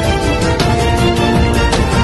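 News-intro theme music: sustained tones over a heavy low bass, with a sharp hit near the end.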